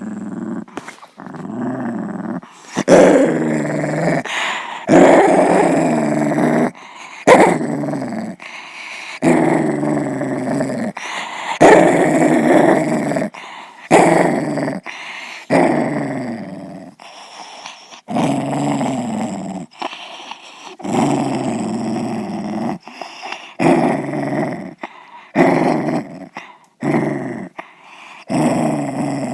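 Dog growling over and over, each growl a drawn-out rumble of one to two seconds with brief pauses between.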